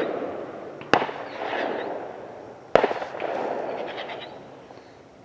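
Fireworks going off: two sharp bangs about two seconds apart, the first about a second in, each followed by a fading crackle and rumble.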